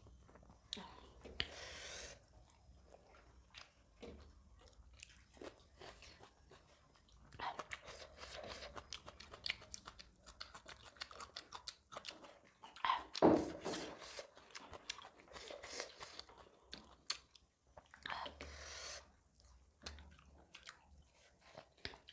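Two people chewing and biting food eaten by hand, close to the microphone: irregular wet mouth clicks and smacks, with the loudest bite about 13 seconds in.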